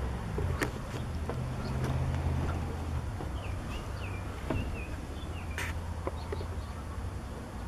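A cat's low, steady growl that fades out about six seconds in, from a cat resenting another cat close beside it. A few quick bird chirps come in the middle, along with light clicks and one sharp click late on.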